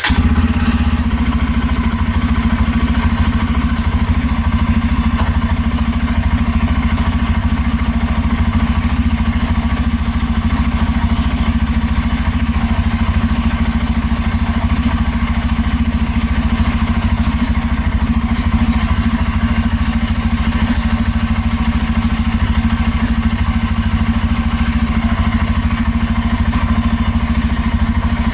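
Bajaj Pulsar N250's single-cylinder engine running steadily at idle, turning the rear wheel and chain in gear with the clutch pulled in. An aerosol chain-cleaner spray hisses over it twice, for several seconds each time.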